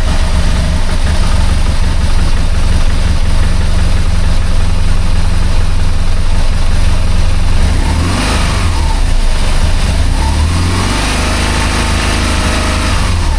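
BMW R1200GS's flat-twin boxer engine running at idle just after starting, loud and steady, its pitch rising and falling briefly about eight seconds in and again a few seconds later. The owner blames its rough idle on throttle bodies that have not yet been synchronized.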